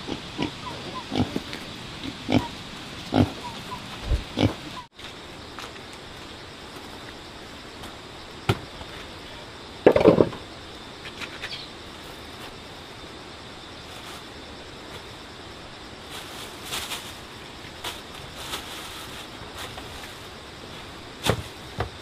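Pigs grunting among scattered short knocks and clatter, with one louder grunt about ten seconds in.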